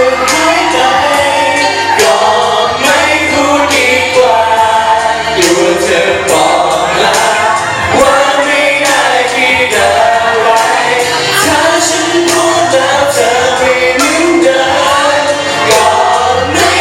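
A pop song with sung vocal lines over a steady backing track, played loud.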